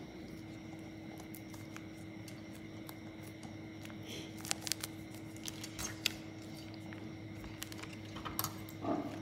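Scattered light clicks and plastic rustles as sausages in a plastic cup and a red plastic sausage wrapper are handled, over a steady low hum.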